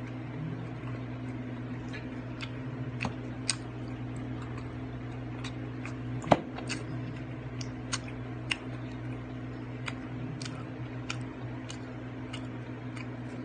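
Scattered small clicks and ticks of someone eating balut, picking at the eggshell and chewing, with one sharper click about six seconds in, over a steady low hum.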